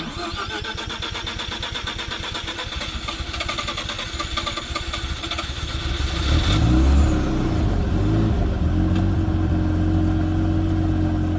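1988 Mazda RX-7's 13B twin-rotor rotary engine being started: it cranks with a fast, even whirr for about six seconds, catches with a brief rev about six and a half seconds in, then settles into a steady idle.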